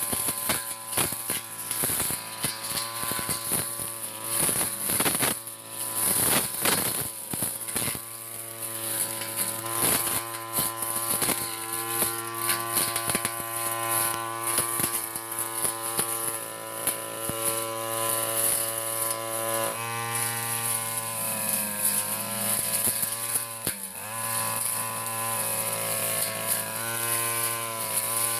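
Backpack brush cutter's small engine running at high revs while its cutting head sweeps grass down to the soil, with a clatter of strikes against grass and ground through the first several seconds. The engine note drops briefly about twenty seconds in and again a few seconds later, then picks up again.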